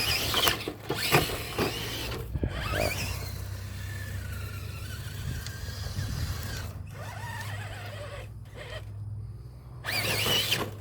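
RC crawler truck driving on a 3S battery: its Holmes Hobbies motor and geartrain whine, rising and falling in pitch with the throttle, with a few knocks and scuffs from the chassis and tyres. The run gets louder again near the end.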